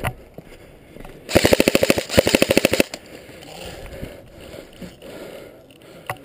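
Airsoft electric gun (AEG) firing on full auto in two short bursts of rapid clicking shots, about fifteen a second, each burst lasting under a second.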